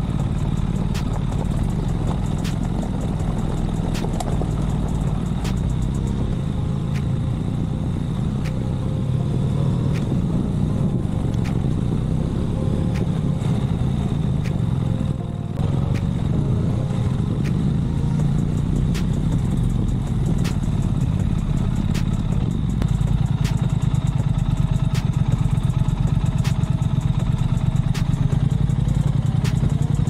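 Triumph Speed Twin's parallel-twin engine running steadily as the motorcycle rides over a stony, bumpy dirt track, with frequent knocks and clatter from the rough surface. It gets a little louder in the last several seconds.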